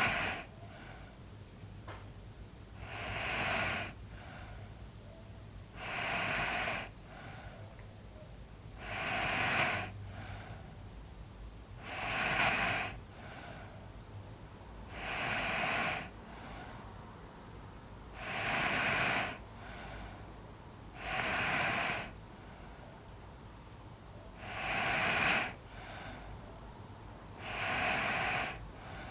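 A sleeping person snoring in a slow, regular rhythm, about ten breathy snores, one roughly every three seconds.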